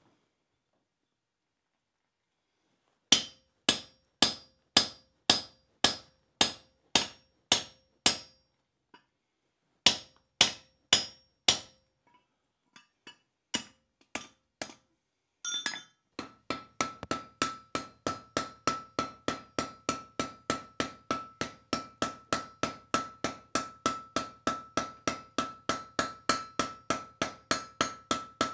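Hand hammer striking red-hot steel on an anvil. A run of about ten blows half a second apart is followed by four more and a few light taps, then fast, even hammering at about three to four blows a second with the anvil ringing steadily under it. The smith is shaping a glowing ball end on the bar.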